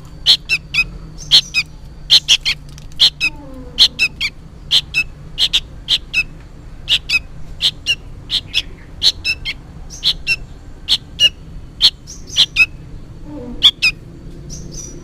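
A juvenile sooty-headed bulbul calling incessantly: short, sharp, high notes repeated about two to three times a second, often in quick pairs or triplets. The noisy calling is what the uploader takes for a young bird calling to its parent.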